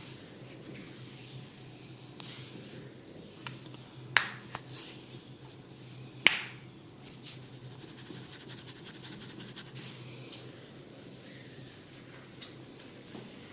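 Hands rubbing and scratching through hair and over the scalp in a barber's head massage, with two loud sharp snaps about four and six seconds in and a few smaller clicks, over a steady low hum.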